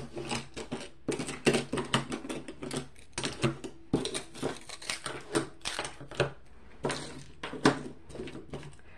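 Many irregular clicks and clatters of small diamond-painted acrylic keychain charms and their metal clasps and chains as they are laid out and shuffled on a tabletop.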